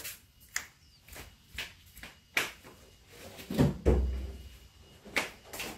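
Wooden storage boxes being handled and set down: a series of scattered knocks and clunks, with a heavier low thud about four seconds in.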